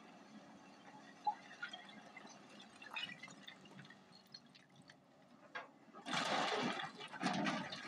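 Broken rock tipped from an excavator bucket into a dump truck's steel bed, a loud rushing clatter in two surges starting about six seconds in. Before it there is a faint steady engine hum with scattered stone clicks.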